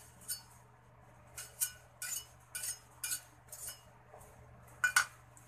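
A utensil scraping and clinking against an empty steel wok in about eight short strokes, clearing out leftover fried bits after the oil has been poured off; the loudest stroke comes near the end.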